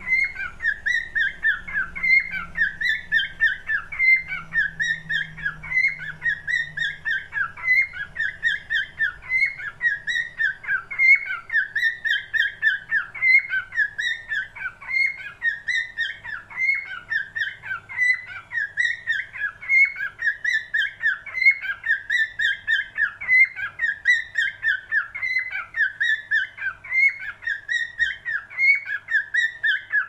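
Cockatiel singing, repeating the same short phrase of chirps and whistles over and over, about once a second.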